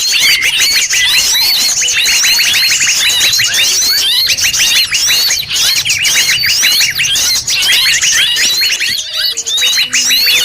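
A loud, dense chorus of many forest birds calling at once: quick repeated chirps, short rising whistles and rapid trills layered over one another without a break. It is a blended bird-lure recording of several wild forest birds, meant to draw birds in.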